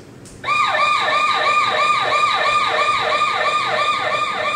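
ASE30DH smoke and gas detector's audible alarm going off: a loud electronic siren of rapid rising sweeps, about three a second, starting about half a second in. It has been set off by unlit gas from a lighter.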